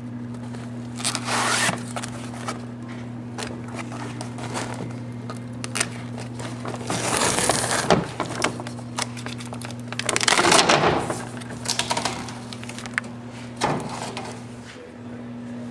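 Clear plastic vacuum-bag film and peel ply being peeled and crumpled off a freshly cured fibreglass ski. The crinkling comes in several bouts, the loudest about ten seconds in, over a steady low hum.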